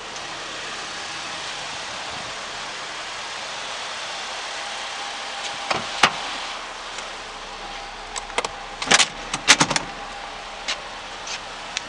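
Mitsubishi Outlander 2.4 L MIVEC four-cylinder engine idling steadily. A sharp click comes about six seconds in, and a burst of loud clicks and knocks comes around nine seconds.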